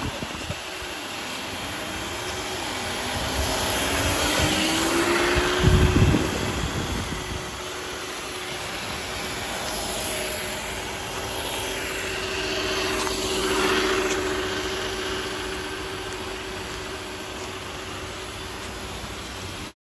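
Electric motor and gear drive of a scale RC crawler truck whining, the pitch climbing and then holding steady as it drives over rough ground. A loud thump comes about six seconds in.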